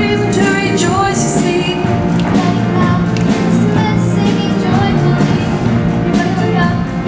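Show choir performance: accompaniment music with a steady beat and the choir singing.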